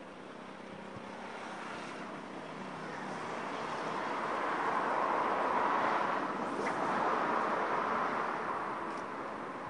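A passing vehicle: a steady rushing noise that swells to a peak about halfway through and then fades.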